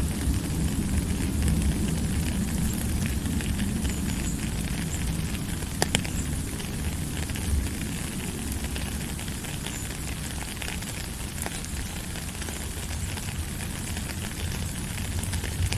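A steady low rushing noise with scattered crackles and clicks, the sharpest click about six seconds in.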